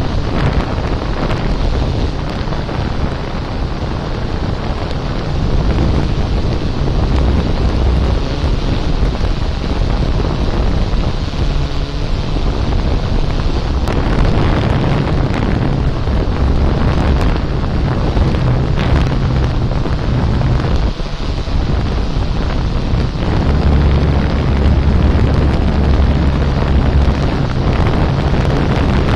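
Drone flying overhead, its propellers and motors running with a steady low hum under heavy wind buffeting on its own microphone.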